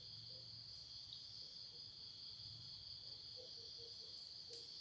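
Faint, steady high-pitched chorus of crickets chirping, over a low background hum.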